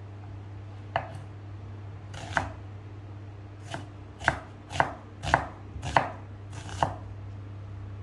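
Kitchen knife slicing a peeled onion on a wooden chopping board: about eight cuts, each ending in a sharp knock of the blade on the board, the later ones coming about two a second. A steady low hum runs underneath.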